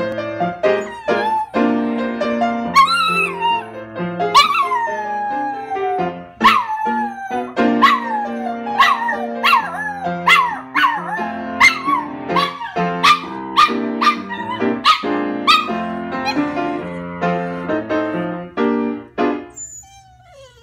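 Miniature schnauzer howling along to piano music: a run of short howls that slide down in pitch, one every second or so, over the piano chords, which stop shortly before the end.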